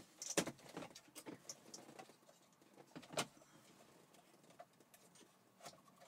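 Scattered clicks and light plastic knocks as a BMW 5 Series radio head unit is slid out of the dashboard and its wiring handled. The sharpest knocks come about half a second in and about three seconds in, with a few fainter ticks in between.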